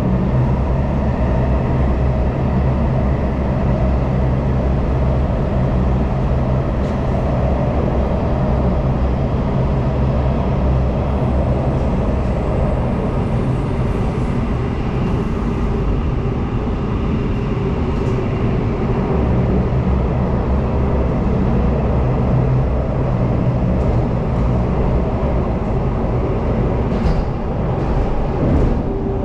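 Singapore MRT train running through a tunnel, heard from inside the passenger car: a steady rumble with a low hum.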